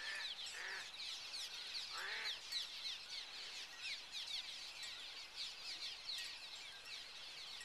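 A large flock of swallows calling as they swarm: many quick, high, falling chirps overlap without a break. Two short lower-pitched sounds stand out, about half a second and two seconds in.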